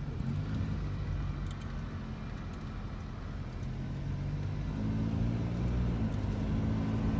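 Car engine running with road noise, heard from inside a slowly moving car. The engine note rises about five seconds in as the car speeds up.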